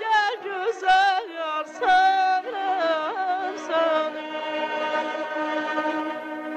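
Azerbaijani music: a highly ornamented melody with wide vibrato and quick turns over a steady drone, settling into one long held note that begins to fade near the end.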